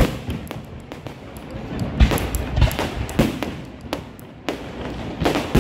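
Aerial fireworks going off: a run of about six sharp bangs and booms, roughly half a second to a second and a half apart, with crackle between them.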